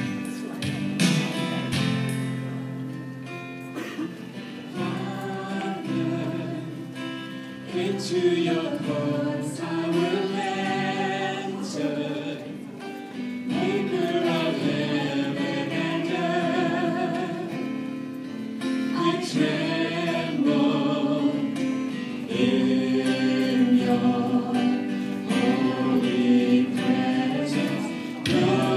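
A small mixed vocal group sings a gospel song into handheld microphones, in harmony over an instrumental accompaniment. Sustained notes carry a wavering vibrato.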